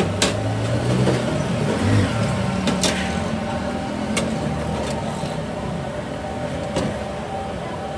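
A vehicle engine running close by, swelling and rising in pitch over the first few seconds and then easing off. A few sharp clinks of a steel spoon against steel bowls and thali plates are heard over it.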